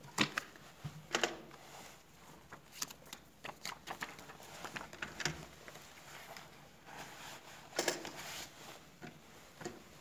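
Irregular handling noise: rustling paper and a string of sharp clicks and taps as a paper hotel key-card folder is handled close to the microphone.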